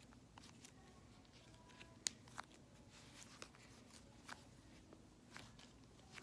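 Faint, sparse small clicks and squishes of fingers poking and flipping butter slime, roughly one a second, with one sharper click about two seconds in, over quiet room tone.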